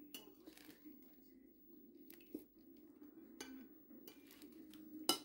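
Faint crackles and clicks of a utensil working whipped cream onto crisp, crumbly nut meringue layers, with one sharper tap about five seconds in, over a low steady hum.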